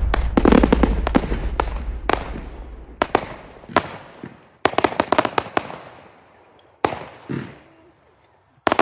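Fireworks bursting: a rapid string of sharp bangs over a deep rumble that fades within the first few seconds, then scattered bangs thinning out, with a last pair of bangs near the end.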